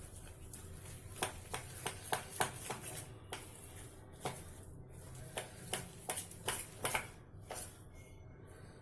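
Thick ground urad dal batter being beaten in a bowl: irregular wet slaps and clicks, a few a second, loudest through the middle and tailing off near the end.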